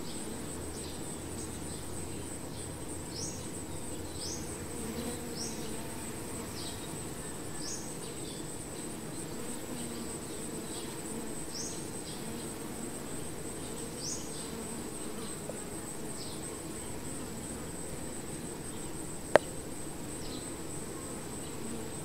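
Honey bee swarm cluster humming steadily, under a continuous high-pitched trill and short, high falling chirps repeated about once a second. A single sharp click near the end.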